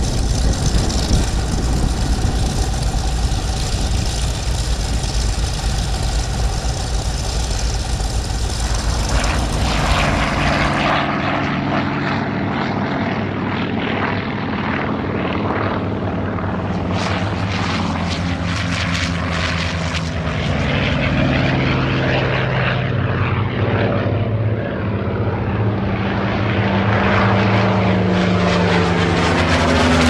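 Vought F4U Corsair's Pratt & Whitney R-2800 radial engine running on the ground with the propeller turning. About ten seconds in, it gives way to another Corsair's engine at take-off power as it runs along the strip and climbs out, the engine note sliding in pitch as it passes.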